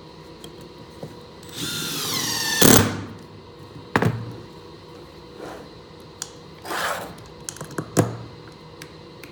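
A cordless impact driver runs for about a second, its whine falling in pitch and ending in a sharp knock. Several more knocks and a couple of short bursts of noise follow.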